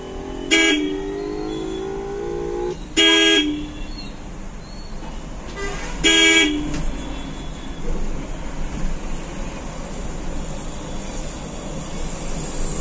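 A vehicle horn honking three times in heavy city traffic: a short blast about half a second in, then two longer blasts around three and six seconds in, over steady traffic noise.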